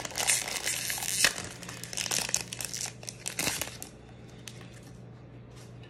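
Foil wrapper of a Pokémon trading-card booster pack crinkling and tearing as it is pulled open, dense crackling for about three and a half seconds. It then drops to a few light clicks and rustles as the stack of cards is slid out.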